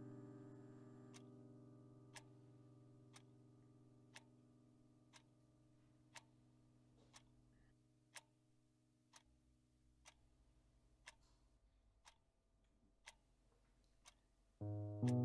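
A clock ticking steadily, about one tick a second, while a held piano chord slowly dies away; piano music comes in loudly near the end.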